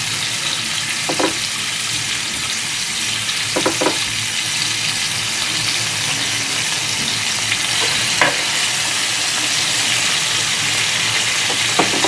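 Floured pieces of toothed smelt sizzling steadily in hot oil in a frying pan, with about four brief crackles scattered through.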